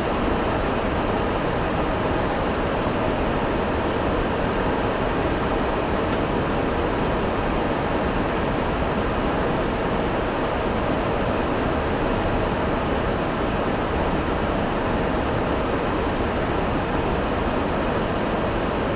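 Steady rushing noise on an Airbus A340 flight deck in flight: airflow and air-conditioning noise, even and unbroken.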